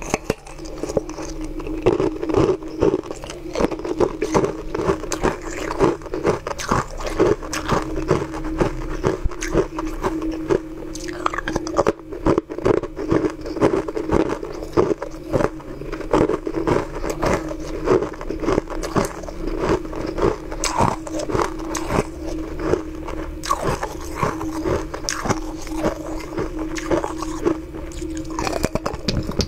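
Close-up crunching of frozen ice rings being bitten and chewed, a dense, irregular run of sharp cracks and grinding crunches that carries on throughout.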